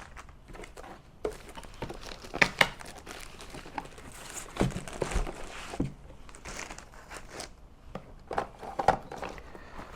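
Plastic packaging and cardboard being handled: irregular crinkling, rustling and a few sharp knocks as items are taken out of a box.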